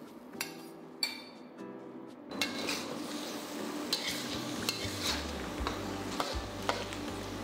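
Mushrooms and sauce sizzling in a hot pan while being stirred, the utensil scraping and clicking against the pan. The sizzling starts about two seconds in and goes on steadily.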